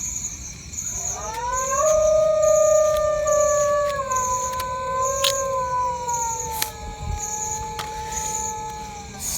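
A dog howling: one long howl that rises in pitch at the start, then slowly sinks over about eight seconds, with a shorter wavering howl just before it.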